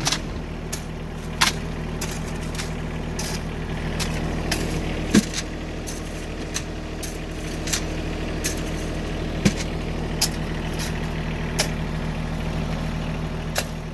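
Vehicle engine running steadily at constant speed, with irregular sharp clicks and knocks over it.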